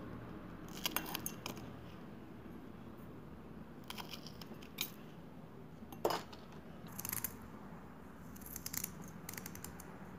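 Chopped green chillies and ginger dropped by hand into a stainless steel mixer-grinder jar, with scattered light clicks and clinks as the pieces hit the steel and the blade.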